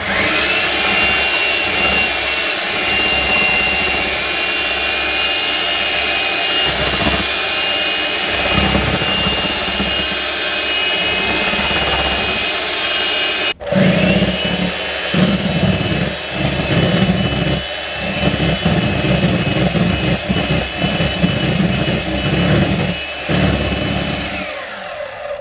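Presto SaladShooter electric hand mixer running steadily with a high motor whine, its beaters whipping egg whites into stiff meringue. It switches off for a moment about halfway, then restarts and winds back up, and it winds down just before the end.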